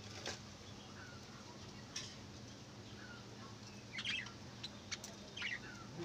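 Budgerigars giving short, scattered chirps and chatter, with louder bursts about four seconds in and again about five and a half seconds in, over a faint steady low hum.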